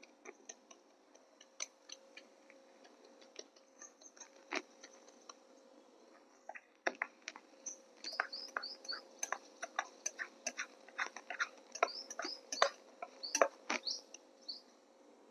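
Steel spatula clicking and scraping against a stainless steel plate while it spreads sticky jaggery-coated rice, the clicks coming thick and fast from about halfway through. Short high chirps come in two spells over the clicking.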